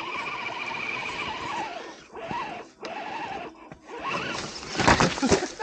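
An RC rock crawler's electric motor and geartrain whining, the pitch wavering with the throttle. About four and a half seconds in comes a burst of loud crackling and scraping.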